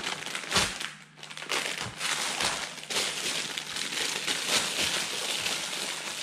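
Thin clear plastic packaging bag crinkling and rustling as it is handled and pulled open, with a knock about half a second in.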